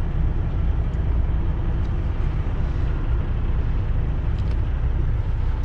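Steady low rumble of a semi truck's engine and road noise heard from inside the cab, while the truck slows in stop-and-go traffic.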